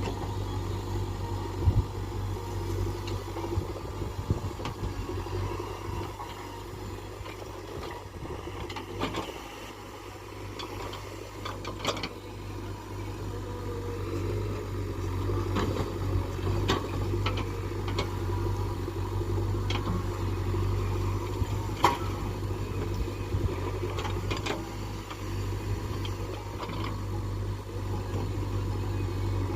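Heavy diesel engine running steadily, from the backhoe loader or the tractor at work, with scattered sharp clanks and knocks.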